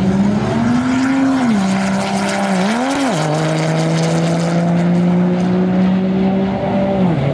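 Diesel Ram pickup running a drag-strip pass at full throttle: the engine note climbs and falls back at each upshift, about a second and a half in and again around three seconds. It then holds a steady note and drops once more near the end.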